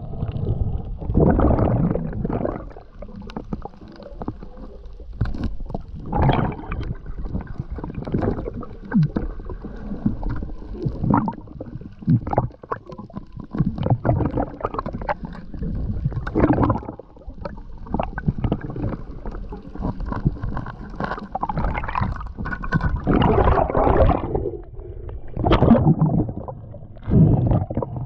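Muffled underwater sound picked up by a camera in a waterproof housing: a low rumble of moving water with irregular knocks and gurgling surges as the diver moves and handles gear.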